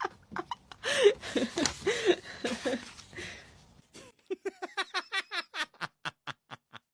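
A person laughing: a few seconds of giggling, then a quick run of short ha-ha pulses, about five a second, that die away near the end.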